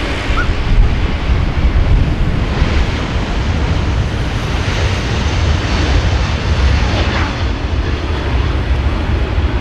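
Jet airliner engines close by, a loud, steady roar with a heavy low rumble that rises a little about a second in.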